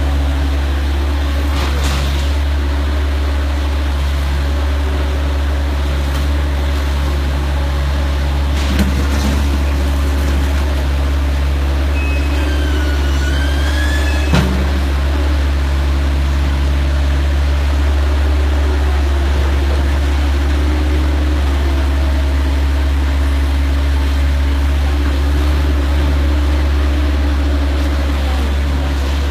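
Full-automatic horizontal cardboard baler running: a steady, loud, deep hum from its hydraulic power unit, with a few short knocks from the machine.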